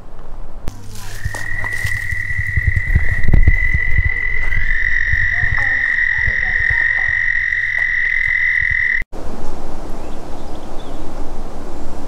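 A steady, high-pitched animal trill starts about a second in and holds one pitch for about eight seconds, then ends abruptly at an edit. Low rumbling thumps run underneath it, and a steady even hiss follows the cut.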